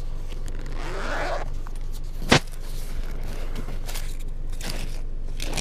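Paper dollar bills rustling and shuffling as they are handled, with one sharp click a little over two seconds in and smaller clicks later, over a steady low hum.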